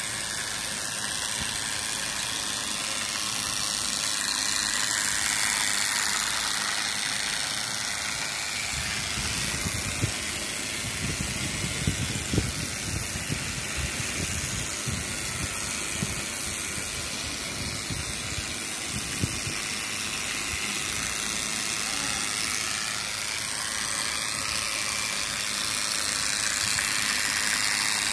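Battery-powered TrackMaster Thomas toy engine running along plastic track with its coaches, a steady motor whirr. In the middle it grows a low rattle with a few sharp clicks as the train rolls close by.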